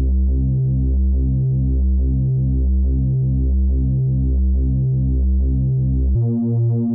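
Background film score: a low synthesizer bass pulsing steadily and slowly. A little past six seconds in, it switches abruptly to a higher, quicker pulse.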